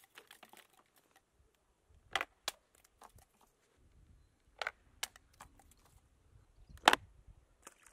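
A handful of sharp, separate clicks and taps at uneven intervals, the loudest about seven seconds in, over a faint low rumble.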